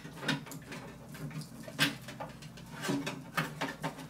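Power-supply cables being pushed into a PC case, rustling and knocking against it in irregular clicks and scrapes, with one sharper knock about two seconds in.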